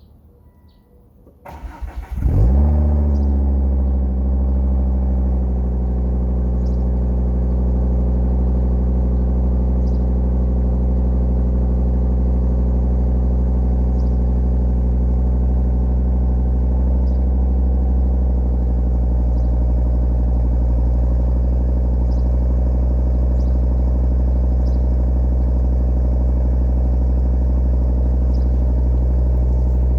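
Volvo S60 inline five-cylinder engine starting: it cranks and catches about two seconds in, the revs flare up briefly, then it settles into a steady idle.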